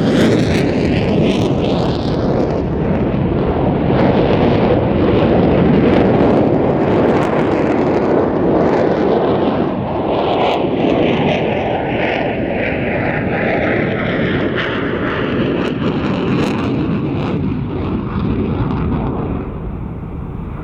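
F-16 fighter jet flying past, its Pratt & Whitney F100 turbofan giving a loud, continuous jet roar. A swirling, sweeping phasing runs through the sound in the first two seconds, and the roar thins and fades slightly near the end as the jet draws away.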